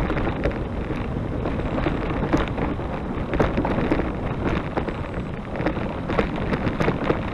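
Wind buffeting the microphone while a loaded bikepacking bicycle is ridden over a rough track, with frequent rattles and knocks from the bike.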